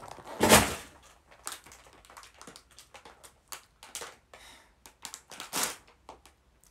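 Handling noise: a large paper sheet rustling loudly about half a second in as it is flipped, then the crinkling of a clear plastic bag of small building-kit pieces, with scattered crackles and clicks and another louder crinkle near the end.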